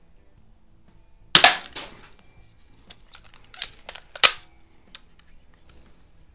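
Healthways Top Score spring-piston BB pistol firing once, a sharp snap with a short rattle after it, about a second and a half in. A few lighter clicks follow, then a loud sharp clack near four seconds as the pistol is handled and cocked again.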